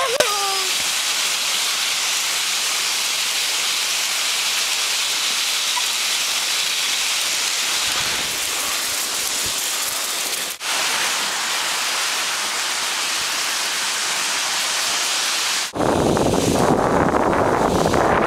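Steady hiss of a dog sled's runners gliding over packed snow as the team pulls. Near the end it turns louder and rougher as wind rumbles on the microphone.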